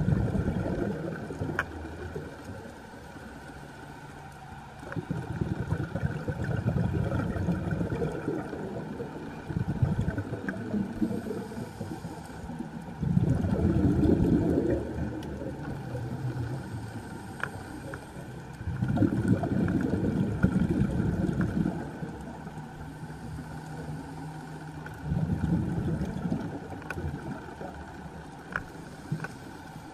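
Scuba diver's exhaled air bubbling out of the regulator, heard underwater, in bursts every five or six seconds with quieter breathing in between. A faint steady hum and a few faint clicks lie underneath.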